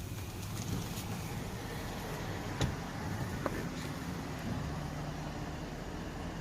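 Steady low rumble of a car on the move, with two light clicks in the middle.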